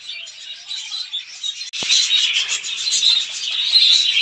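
Many small cage birds chirping at once in a dense, continuous chatter. A click comes about two seconds in, and the chirping is louder after it.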